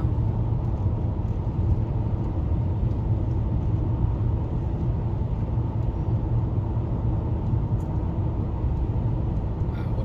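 Steady low rumble of road and engine noise heard inside the cabin of a car cruising along a highway.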